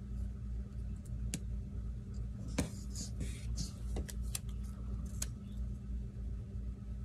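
Paper sticker sheets and a planner page being handled, with stickers lifted off and pressed down: scattered short rustles and clicks over a steady low hum.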